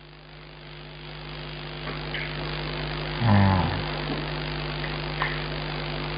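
Steady electrical mains hum with hiss on a telephone call-in line, the hiss growing louder over the first two seconds. A brief vocal murmur sounds about three seconds in, with a couple of faint clicks.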